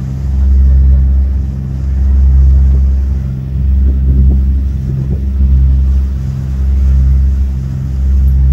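Boat engine running with a steady low rumble that swells and fades about every second and a half.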